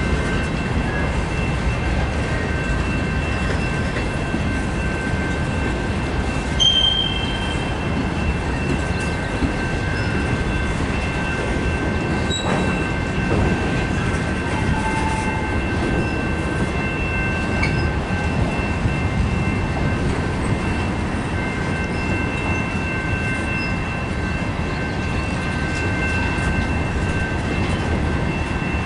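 Freight train cars, boxcars then bulkhead flatcars, rolling steadily past at close range: a continuous rumble of steel wheels on rail, with a steady high-pitched squeal from the wheels.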